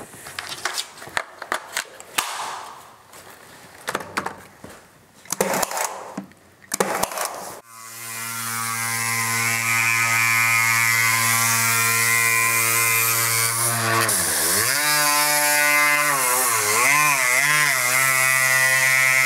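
Irregular clicks and knocks of tool handling, then about eight seconds in a Surfprep electric sander with a cushioned pad starts and runs steadily, sanding the laminated cap moulding with 220-grit paper. Its pitch dips and wobbles twice as it comes under load on the curved profile.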